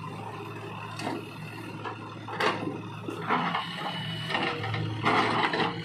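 JCB 3DX backhoe loader's diesel engine running steadily under hydraulic load, with several louder bursts of noise as the bucket empties and swings back into the pit to dig into the soil.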